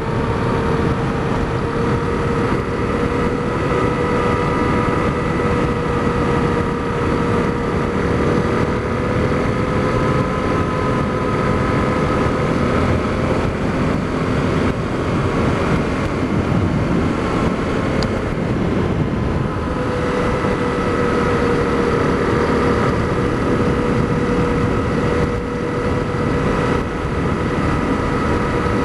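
Honda CRF250L single-cylinder four-stroke engine running steadily at road speed, heard under heavy wind rush on a helmet-mounted microphone. The engine note eases off for a few seconds midway, then picks back up.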